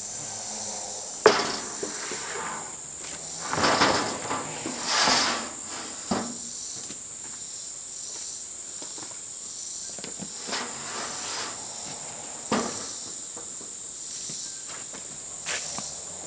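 Steady high-pitched insect chirring, with several scattered knocks and clunks, one about a second in and others around four, five, six, ten, twelve and fifteen seconds in.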